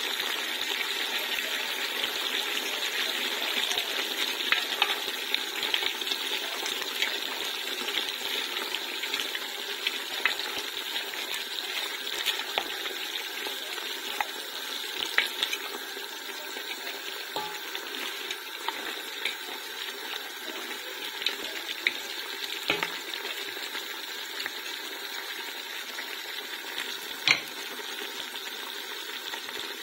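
Meat and onions sizzling steadily in a stone-coated pot, stirred with a wooden spatula that scrapes and knocks against the pot now and then. There is one louder knock near the end.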